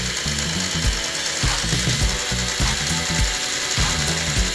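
Electric motor and gearing of a model New York Central Hudson locomotive whirring steadily as it runs on a roller stand at a higher power setting, its driving wheels spinning on the rollers.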